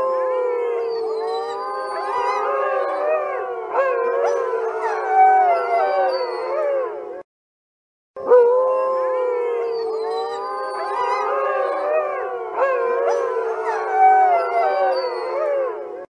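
A pack of wolves howling together in chorus, many overlapping howls rising and falling in pitch. The chorus cuts off abruptly about seven seconds in and, after a second of silence, starts again the same way.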